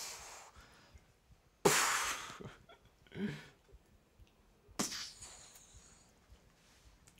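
A young man making breathy, hissing mouth noises in three separate bursts. The first, about two seconds in, is the loudest and longest; a shorter one follows about a second later, and a sharp one comes near five seconds.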